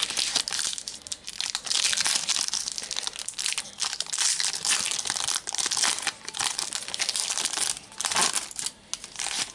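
Foil wrapper of a Panini Adrenalyn XL trading-card packet crinkling steadily as it is torn open by hand.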